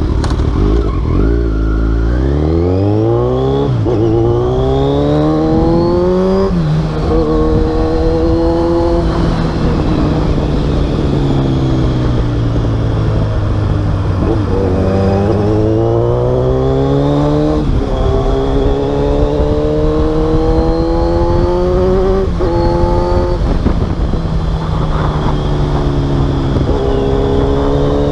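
Kawasaki Z1000 inline-four engine with a full aftermarket exhaust system, accelerating hard. The revs climb and drop sharply at each upshift, fall slowly as the rider eases off midway, then climb through the gears again.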